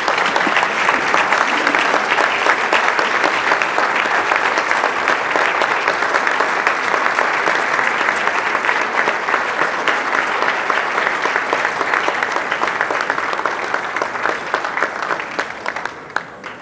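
A large audience applauding: dense, steady clapping that fades away near the end.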